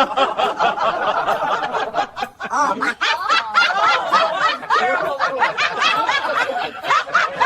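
Hearty human laughter in quick, high-pitched bursts, going on without a break for words.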